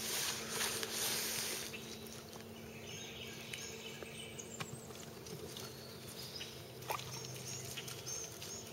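Quiet woodland ambience with faint bird and insect calls and a few sharp small clicks, over a faint steady low hum. A brief rush of noise comes in the first second or so.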